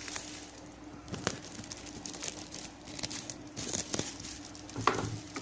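Plastic packaging crinkling and rustling, with scattered clicks and a louder knock near the end, as a new speaker is handled and unwrapped.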